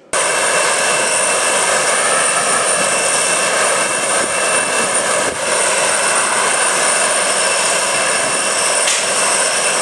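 Jet aircraft engines running: a loud steady rush with several high, unchanging whining tones, cutting in abruptly.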